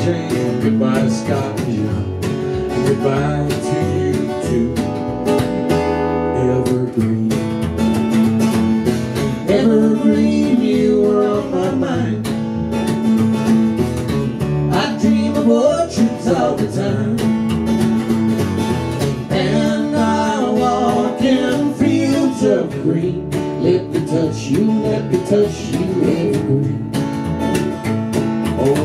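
Live acoustic guitar strummed over an upright double bass, playing a song together at a steady beat.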